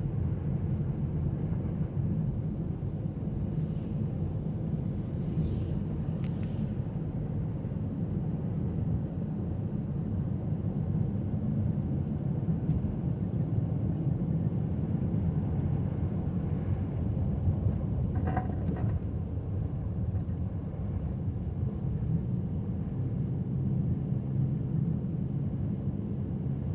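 Steady low rumble of a car driving on snowy roads: engine and tyre noise with no change in pace.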